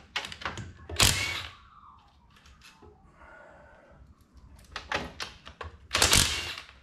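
A cordless driver running in several short bursts, the loudest about a second in and near the end, as it backs out the front pump bolts on a TH350 automatic transmission. A few sharp clicks come between the bursts.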